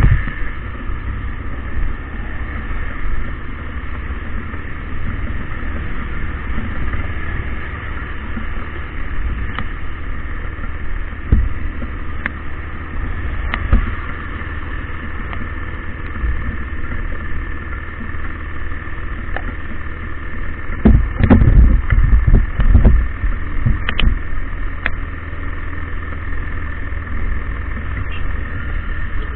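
A vehicle engine running with a steady low rumble, a few sharp clicks, and a louder stretch of low buffeting about 21 to 23 seconds in.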